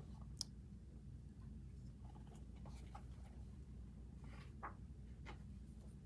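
Quiet room with a steady low hum and a few faint, short rustles and clicks, about half a second in and again near the end, from the pages of a picture book being handled and turned.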